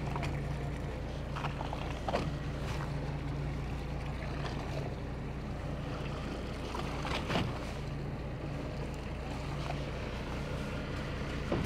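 Fishing boat's engine running steadily with a low hum, under wind and water noise, with a couple of faint knocks.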